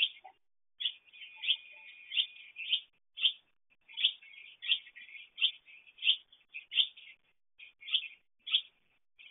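Barn swallow calls at the nest: a run of short sharp chirps, about one and a half a second, with soft twittering between them. This is the "chuchu-poi" call that the uploader hears from the female two or three days before the chicks hatch.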